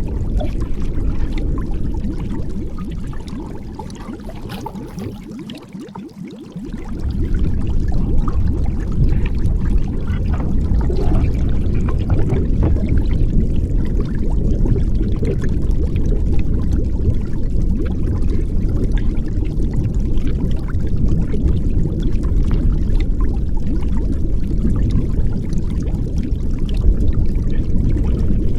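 Muffled underwater water noise picked up by a waterproof action camera: a steady low rumble with faint crackles. It drops away for a moment about four to six seconds in, then comes back.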